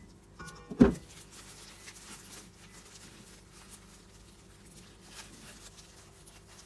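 A single sharp knock a little under a second in, then faint rustling and handling of a wet cotton T-shirt in a stainless steel bowl, over a faint steady hum.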